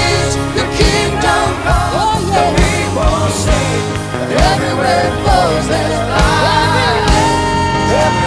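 Live worship band playing a slow song, with a woman's voice singing a drawn-out melody over sustained keys and a steady kick drum about once a second.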